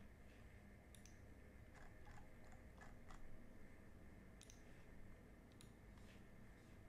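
Near silence with a few faint, scattered clicks from a computer mouse and keyboard.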